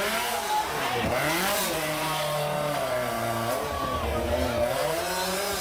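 Rally car engine running hard, its pitch swinging down and back up about a second in, then holding high before rising and falling again near the end, as it changes revs through the gears.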